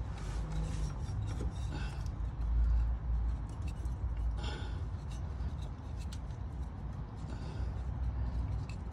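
Rubbing and scraping with scattered light clicks as a crankshaft position sensor is wiggled by hand out of its bore in an engine block. A low rumble swells about a third of the way in.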